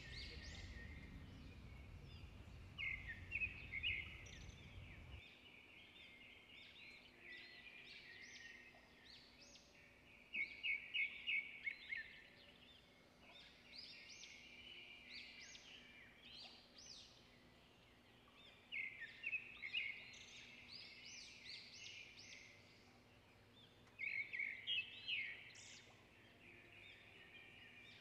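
Songbirds chirping and singing: four bursts of quick trilled notes several seconds apart, with softer chirps between. A low rumble underneath stops about five seconds in.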